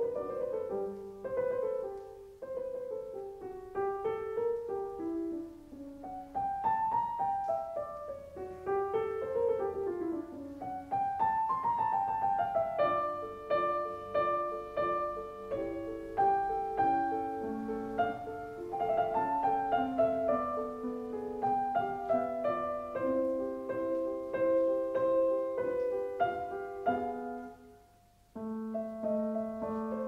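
Solo piano music playing flowing runs of notes. It drops out briefly about two seconds before the end, then picks up again.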